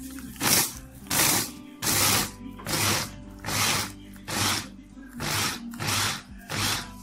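Manual mini food chopper cutting red chilli peppers into harissa: nine short bursts of the blades spinning through the peppers, a little under one a second.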